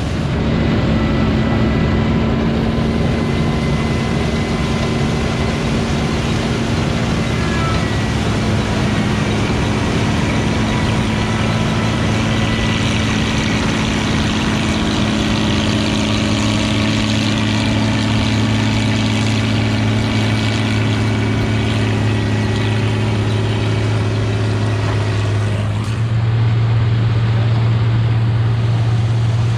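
Vintage harvesting machinery, a combine or corn sheller, running steadily with its engine's low drone under a hiss and clatter of working mechanism. Near the end the higher clatter drops away and the low engine note grows louder.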